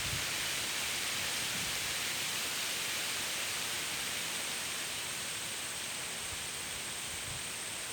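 Steady white-noise hiss for sleep, an even rushing sound with no breaks, easing very slightly in level.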